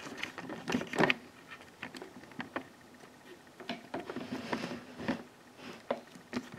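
Handling noise close to the microphone: light clicks, taps and rustles at irregular intervals.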